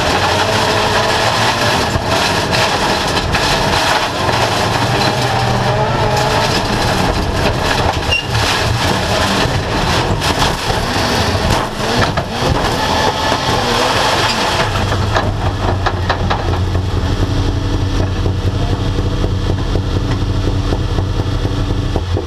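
Autocross race car heard from inside the cabin. The engine runs hard at racing speed, then a run of bangs and knocks comes about 10 to 14 seconds in as the car crashes. From about 15 seconds the engine settles to a steady idle with the car stopped.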